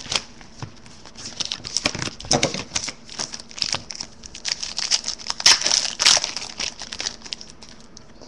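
Trading card pack wrapper being torn open and crinkled by hand: irregular crackly rustling, busiest a little past the middle and dying away near the end.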